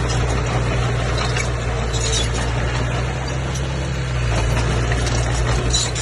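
Komatsu bulldozer's diesel engine running steadily under load, its low drone dipping and rising slightly in pitch about halfway through, with scattered high squeaks and clinks over it.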